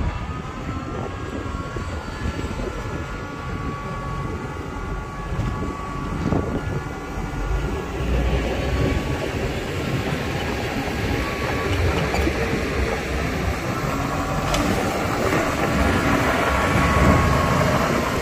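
Heavy earthmoving machinery running: a steady diesel engine drone with a higher whine over it, getting louder about eight seconds in.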